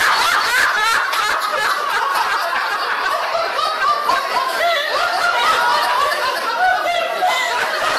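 A group of men laughing together, several voices overlapping.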